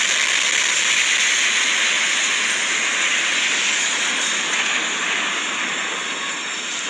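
Loud, steady rushing noise of the Beirut port explosion's blast, starting suddenly just before and fading slowly.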